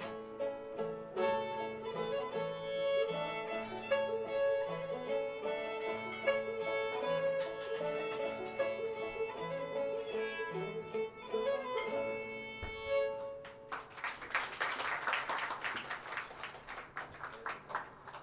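Old-time string band music: a fiddle playing a tune over plucked-string accompaniment with a steady bass rhythm, ending about fourteen seconds in. Applause follows for about four seconds and fades.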